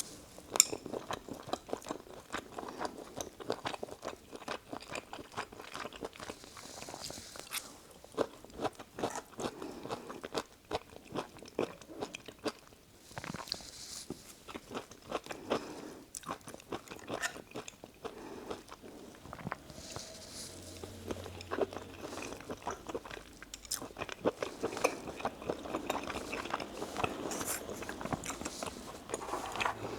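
A person chewing and biting into spicy Korean dakgalbi (stir-fried chicken) with rice, heard close up: a dense, continuous run of small clicks and mouth sounds.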